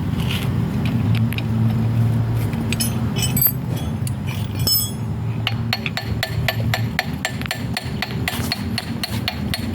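Metal clinking and tapping, settling about five seconds in into an even run of light taps, roughly three a second, over a low steady hum that drops away near seven seconds.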